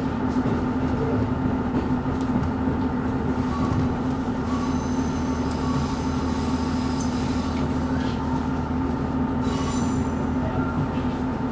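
KiHa E130-series diesel railcar moving slowly while shunting, its engine giving a steady hum. Its wheels squeal high-pitched twice, from about four and a half seconds in for a couple of seconds and again briefly near ten seconds, as the flanges grind through the tight yard curves and points.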